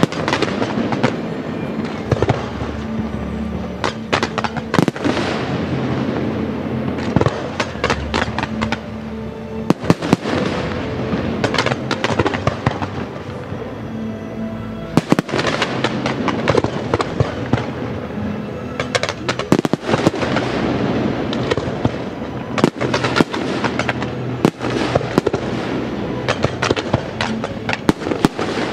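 Fireworks display: aerial shells bursting in quick, irregular succession, many sharp bangs overlapping, with music playing underneath.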